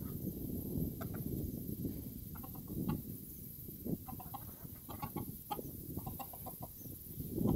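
Chickens clucking in short runs of quick clucks, over wind rumbling on the microphone.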